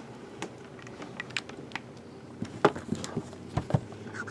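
Hands handling a wrapped cardboard trading-card hobby box: scattered light clicks and taps of fingers and the box against its wrapper and the table, with a few sharper taps in the second half.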